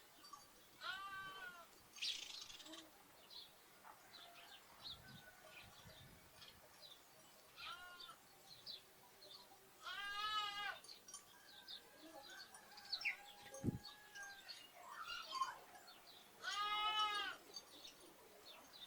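Lambs bleating three times, each bleat about a second long with a wavering pitch, the second and third louder, while small birds chirp on and off. A brief low thump sounds about two-thirds of the way through.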